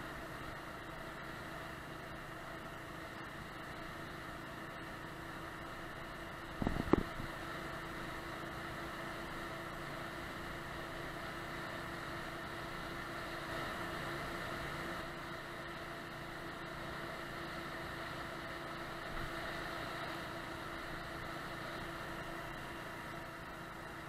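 Small motorcycle's engine running steadily at cruising speed, heard from the rider's seat, with one sharp knock about seven seconds in.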